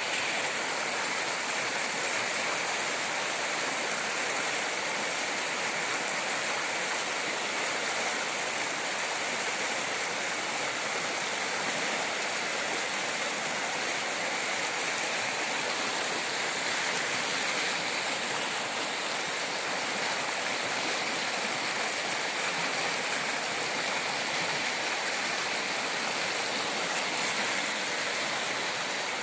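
Two swollen, muddy mountain streams rushing together at their confluence: a steady, loud wash of fast, turbulent water in flood.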